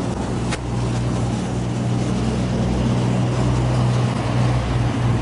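A motor vehicle's engine running with a steady low hum, amid street traffic noise; a single sharp click about half a second in.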